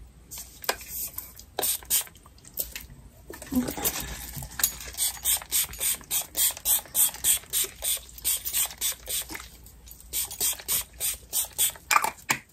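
Bath and Body Works body mist spray bottle pumped over and over, short hissing puffs about three a second, stopping for about a second partway through before starting again.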